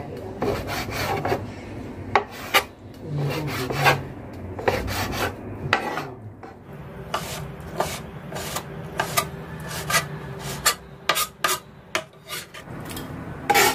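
Large kitchen knife cutting raw chicken breast into small pieces on a plastic cutting board: irregular knocks of the blade on the board, with scraping and slicing between the strokes.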